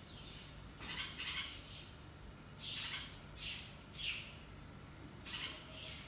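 Red-vented bulbuls at the nest giving short, harsh calls, about eight in a row at uneven gaps.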